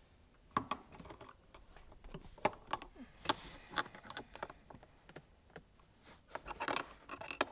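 Steel wrench and ratchet clinking and clicking against a brake line fitting on a hydraulic handbrake master cylinder as it is tightened. Sharp metallic clicks come throughout, the loudest under a second in with a brief high ring, and a quick run of clicks comes near the end.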